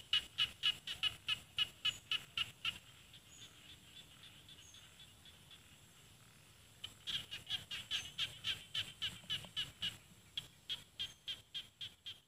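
A rice-field frog (khiat na) calling in a fast, even series of short, sharp notes, about four or five a second. The calling stops about two and a half seconds in and starts again about seven seconds in, slowing a little near the end.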